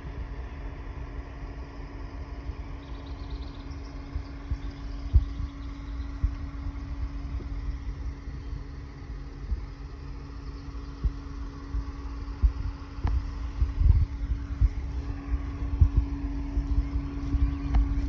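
Wheeled forestry machine's diesel engine idling with a steady hum, broken by irregular low thumps.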